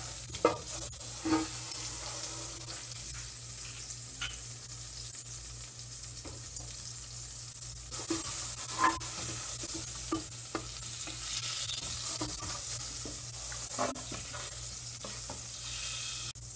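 A block of butter sizzling as it melts in a hot stainless-steel pot, pushed around with a spatula that scrapes and knocks against the pot now and then. The sizzle gets louder about eight seconds in.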